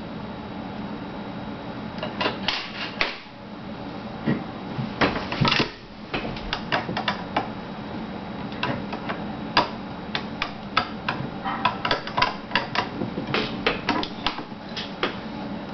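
Metal parts of a vz. 52/57 rifle clicking and clacking as they are handled during field stripping, an irregular scatter of sharp clicks and knocks that comes thicker in the second half, over a steady low hum.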